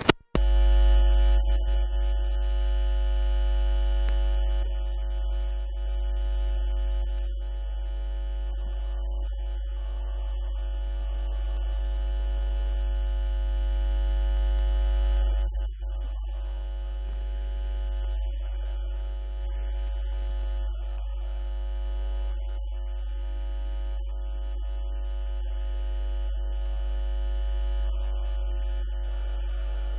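Steady electrical mains hum: a deep drone with a buzz of many higher steady tones above it, unchanging except for a brief dip about halfway through.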